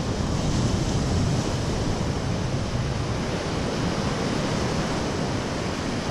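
Ocean surf washing onto a beach, a steady rush, with wind blowing on the microphone.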